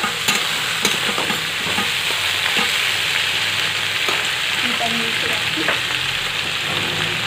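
Chopped vegetables sizzling steadily as they fry in a large aluminium kadai, while a long flat metal spatula stirs and scrapes through them, giving a few short clicks of metal on the pan. The vegetables are partway through their first fry for a shukto.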